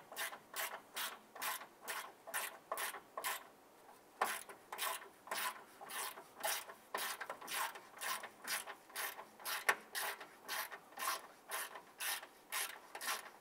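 Hand ratchet with a socket extension tightening a bolt, its pawl clicking in a steady run of short strokes about two to three a second, with a brief pause about four seconds in.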